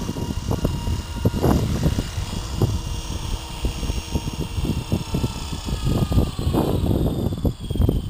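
500-size flybarless RC helicopter spooling down after landing: the rotor and motor whine slowly falls in pitch. Wind gusts buffet the microphone throughout.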